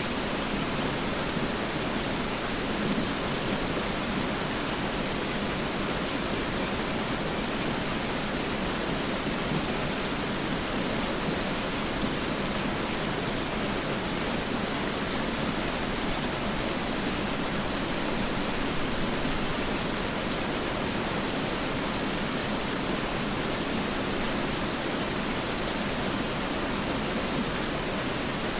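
Mountain river flowing: a steady, even rush of water without breaks or single splashes.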